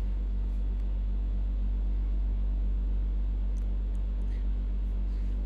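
Steady low hum with a few faint clicks about three and a half to four and a half seconds in.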